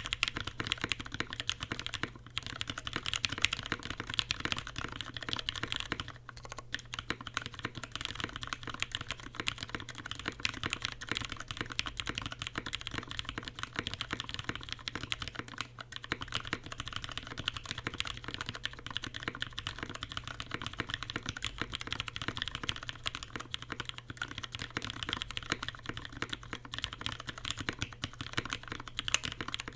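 Steady, fast typing on a Linworks Dolinger RE custom mechanical keyboard with lubed, retooled Cherry MX Brown tactile switches on a polycarbonate plate, under CRP Peacock keycaps: a dense run of keystroke clacks. There are brief pauses about 2 and 6 seconds in.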